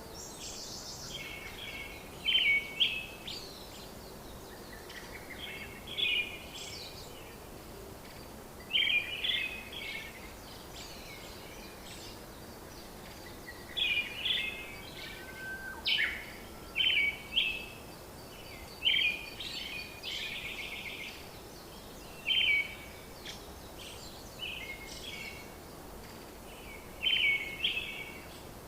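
Birds calling: short bursts of high chirps come every few seconds over a steady background hiss.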